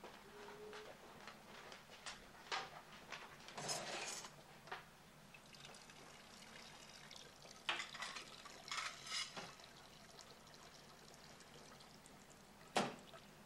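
Quiet, scattered household sounds: footsteps and clothing rustle with a few short knocks, and two sharp knocks near the end.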